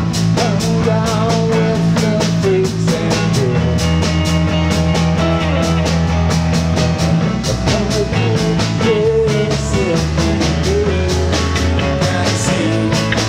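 Live rock band playing an instrumental passage: drum kit keeping a steady beat under low held bass notes, keyboard and guitars, with a lead line of bending notes over the top.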